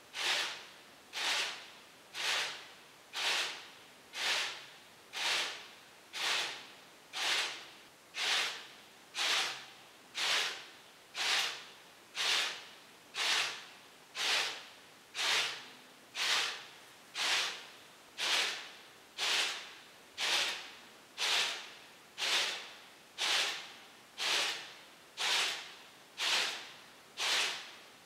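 Clock arms of a kinetic light installation stepping in unison, a short swish about once a second in a steady, even rhythm.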